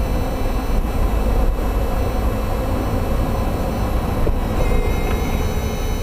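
Toyota MR2 Spyder running on BC Racing BR coilovers, giving a steady low rumble of road and suspension noise. The recording is meant to catch a knocking clunk from the coilovers.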